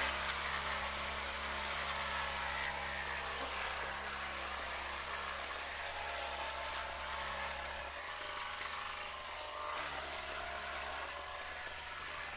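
Draper orbital sander running steadily, its motor hum under the hiss of paper rubbing on the wooden door; the hum shifts in pitch about eight seconds in. The sander is an old unit that the owner judges to be on the way out.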